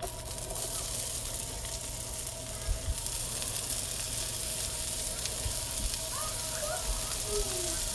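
Chopped onions sizzling in hot grease in a cast iron frying pan as handfuls are dropped in. The sizzle starts suddenly and grows a little louder about three seconds in, as more onion goes in.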